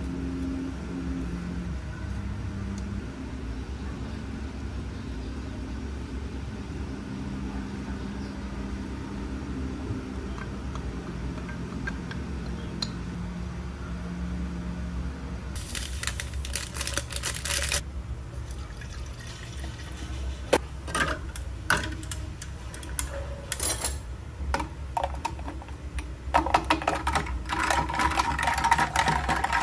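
Thick Japanese curry sauce poured over rice, a low steady pouring sound. About sixteen seconds in comes a short rustling burst as dried herbs are shaken from a glass jar. Near the end, a run of clicks and rattles as a plastic lid is pressed onto a cup.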